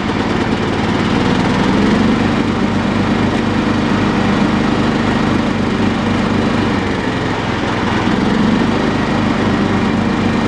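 Cub Cadet 1018 lawn tractor engine running steadily with the PTO engaged, turning the mower deck.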